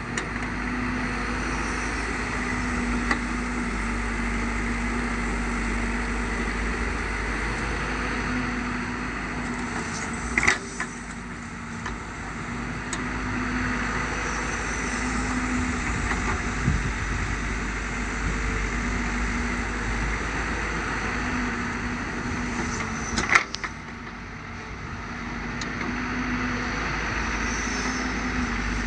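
Hydraulic excavator's diesel engine running steadily, with two sharp knocks, the first about a third of the way in and the second about four-fifths through.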